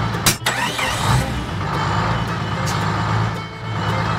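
Tractor engine running steadily at a low, even pitch, with a sharp knock about a third of a second in.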